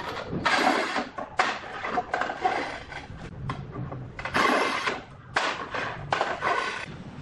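A manual tile cutter working a large ceramic tile: about six short scraping strokes of its scoring wheel and head across the glaze, each about half a second, with the loudest stroke near two-thirds of the way in. The tile is then snapped along the score and the cut pieces are shifted.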